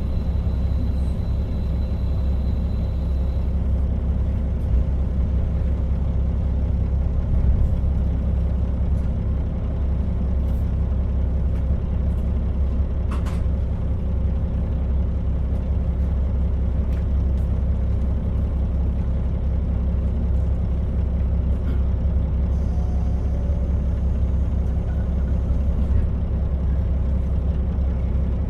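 KiHa 40 diesel railcar running steadily: a low, even drone of the diesel engine and wheels on rail, with one short click about halfway through.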